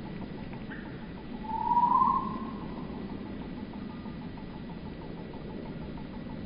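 Garden birdsong slowed to quarter speed, turning the calls into deep, drawn-out tones: one long, slightly rising note about a second and a half in, with a few faint ticks, over a steady low hiss of slowed ambient noise.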